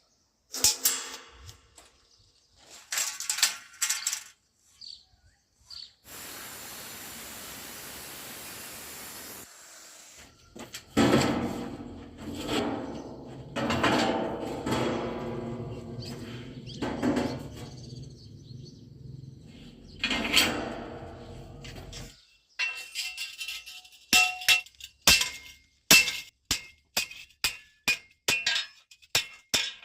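Metal workshop sounds: a few sharp metallic knocks, a few seconds of steady hiss, then about ten seconds of a pitched running sound that swells and fades. Near the end comes a quick run of hammer blows on metal, about two or three a second.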